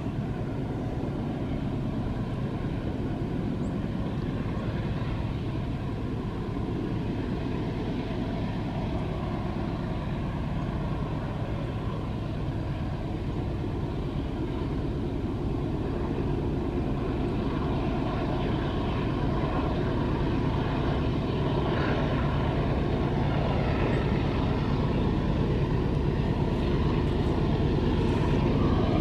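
Five GE diesel-electric freight locomotives (C44EMi, AC44i and C30-7) working hard up a steep grade with a heavy loaded freight train: a steady low engine drone that grows gradually louder as the train approaches.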